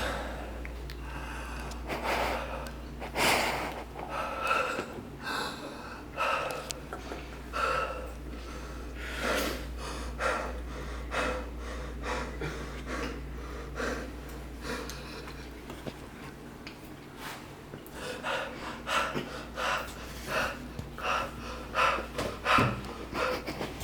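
Short, irregular breathy puffs and gasps, one after another, over a steady low hum.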